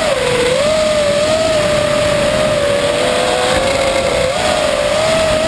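FPV racing quadcopter's brushless motors and propellers whining, heard close up through the onboard camera, several close tones wavering up and down in pitch as the throttle changes.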